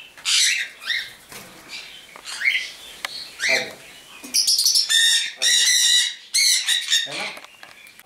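Parrots in an aviary calling: short, high, rising and falling calls, then a run of loud, harsh screeches from about four to six seconds in.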